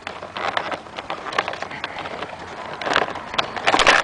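Hands working an action figure out of its plastic packaging: a run of irregular clicks and crinkles, densest and loudest near the end.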